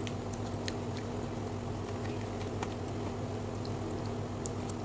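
Close-up chewing of sushi with soft wet mouth clicks, over a steady low hum.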